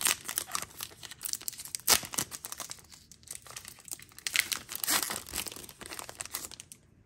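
Foil wrapper of a Pokémon Trick or Trade booster pack being torn open and crinkled by hand: a run of crackling rustles and tears, with sharper crackles about two and five seconds in.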